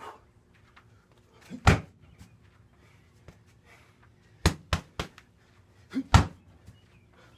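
Punches and kicks landing on a free-standing heavy bag, as sharp thuds. There is one hard strike about a second and a half in, a quick run of three a little past the middle, and two more near the end, the last a kick.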